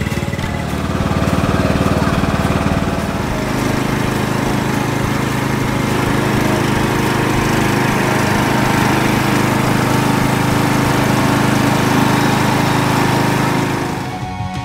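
Riding lawn tractor's engine running steadily and loud, its note shifting about three and a half seconds in. It drops away just before the end.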